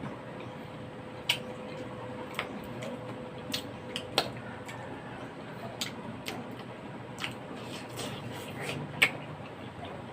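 Eating sounds at a meal table: scattered, irregular sharp clicks and clinks of utensils against dishes, with a faint steady hum in the background.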